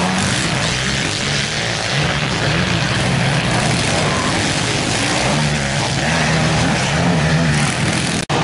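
Engines of several racing quads running and revving together on the track, a dense engine din whose pitch rises and falls as riders throttle through the bend. The sound drops out for an instant near the end.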